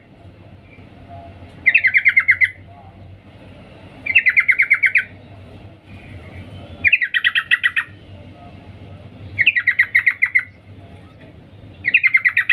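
Female yellow-vented bulbul (trucukan) calling: five short bursts of rapid chattering 'cuk-cuk' notes, coming about every two and a half seconds. This is the call a female uses to draw a male.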